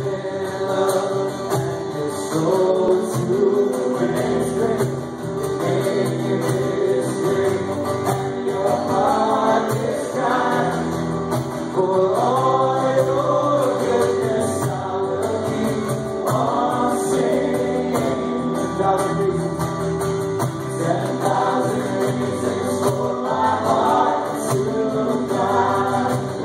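Gospel-style Christian worship music: voices singing over a steady instrumental backing.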